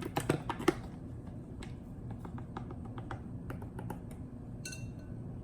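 Light clicks and taps of spice containers and a tablespoon measuring spoon as dry seasoning is measured out and tipped in. The clicks come in a quick cluster within the first second, then scattered ticks follow.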